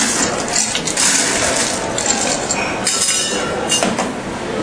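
Ice cubes and glassware clinking and rattling as a cocktail is built over ice, in a run of short clinks with a few sharper knocks.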